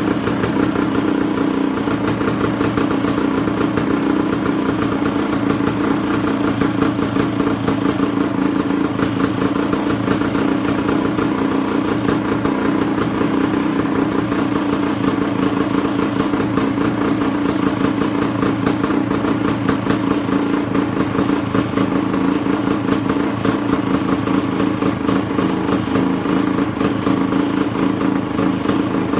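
1976 Honda MT250 Elsinore's single-cylinder two-stroke engine running steadily at idle.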